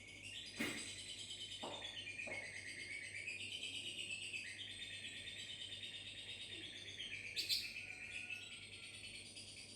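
Lovebird ngekek: a long, rapid chattering trill held without a break, stepping up and down in pitch. A few sharp clicks come in the first couple of seconds and once more near the end.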